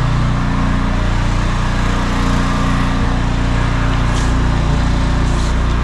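Small petrol engine of a pressure-washing machine running steadily at a constant speed, with a couple of brief high hisses a little after four and five seconds in.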